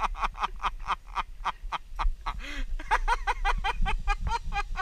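A woman laughing hard in a long run of quick, cackling bursts, about five or six a second, with a short break partway through.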